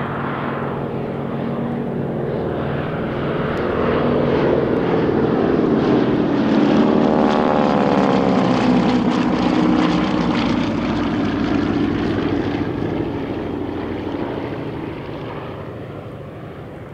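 Radial-engined warbirds, a twin Pratt & Whitney Wasp Junior Beechcraft AT-11 and a T-6 Harvard, flying past in formation. The propeller and engine drone grows louder, peaks around the middle, then fades away.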